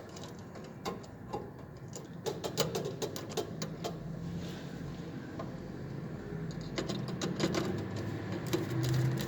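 Irregular light clicks and taps of hand work on fire alarm panel wiring and terminals, over a low steady hum.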